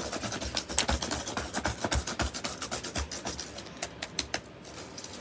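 Fast, hard key-mashing on a Chromebook laptop keyboard: a dense, irregular clatter of plastic key clicks with a few heavier thumps, thinning out after about four and a half seconds.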